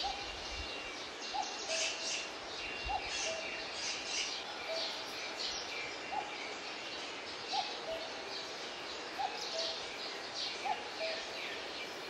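Birds chirping: many short, scratchy high chirps over a low, soft call that repeats about once a second.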